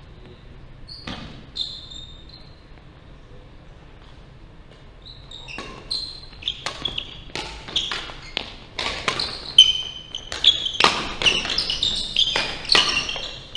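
Badminton doubles rally on a wooden hall floor: sharp racket strikes on the shuttlecock mixed with short high sneaker squeaks. One strike comes about a second in, then after a quiet stretch the strikes and squeaks come thick and fast from about five seconds in, busiest near the end.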